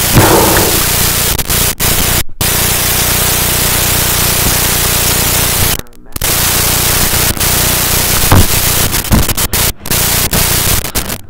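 Loud, even static hiss that cuts out abruptly several times for a fraction of a second.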